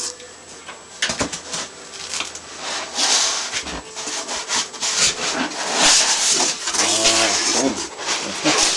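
Cardboard box and packing material being handled and pulled about: irregular rustling and scraping, with a few knocks, the sharpest about a second in.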